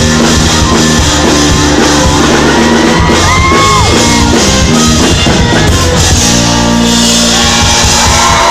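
Live rock band playing, drums and bass guitar under shouted and sung vocals; a chord is held for a moment about six seconds in.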